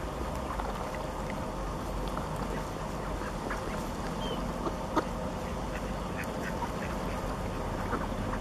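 Mallards quacking and calling in short, scattered calls over a steady background hiss. A sharp click about five seconds in is the loudest sound.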